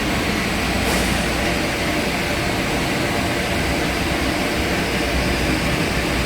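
Steady drone of boiler-room machinery: an even hum with several constant tones that does not change, and a faint click about a second in.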